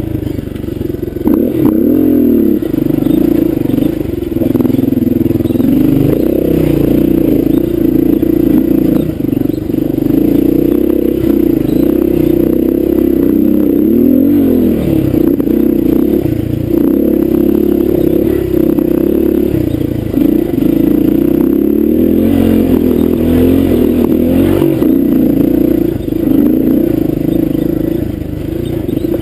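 Honda dirt bike's engine running under constantly changing throttle, its pitch rising and falling as the bike works along a rough trail.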